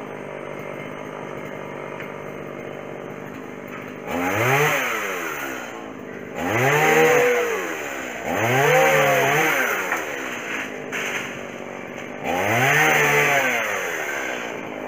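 Chainsaw idling steadily, then revved four times, its pitch climbing and dropping back with each pull of the throttle.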